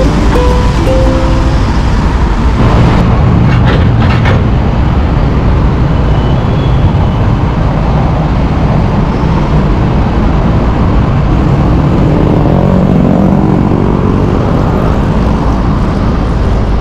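Long-reach excavator's diesel engine running steadily on a canal dredging barge as the machine works to move forward, with a few knocks about three to four seconds in.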